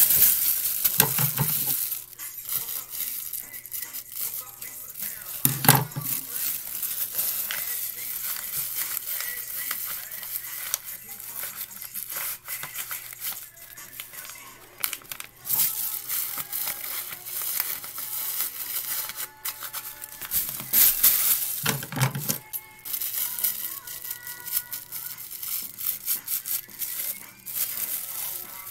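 Paper and stuffing crinkling and rustling as stuffing is pushed into a taped paper squishy by hand, with a few louder bumps of handling.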